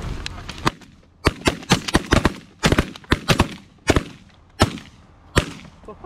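A volley of shotgun blasts from several guns firing together, about fifteen shots in all: rapid and overlapping at first, then thinning to single shots spaced well apart near the end.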